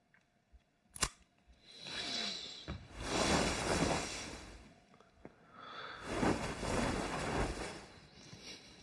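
A single soft click, then three whooshing swells of noise, each rising and fading over a second or two.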